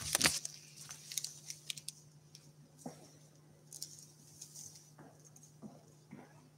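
Sheets of paper being gathered and handled at a lectern, with a sharp knock on the lectern microphone at the start. Faint scattered rustles and soft taps follow.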